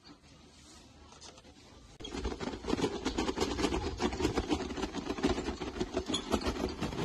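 Rented tourist cart rattling and clattering over stone paving, a fast irregular jolting that starts about two seconds in after a quiet moment.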